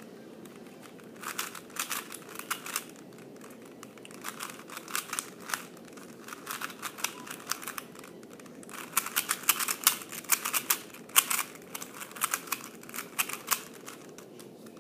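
A plastic 3x3 Rubik's cube being turned by hand during a solve. The layers click in quick bursts of turns with short pauses between, and the bursts are densest and loudest in the second half, over a steady low hum.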